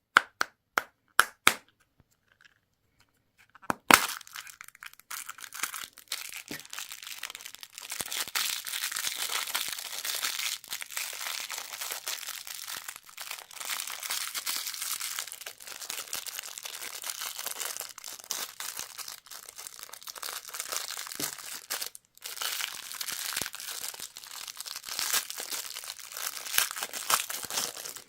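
A few sharp clicks, then about four seconds in a loud click and steady crinkling and rustling of a candy wrapper being unwrapped by hand, with one short pause near the three-quarter mark.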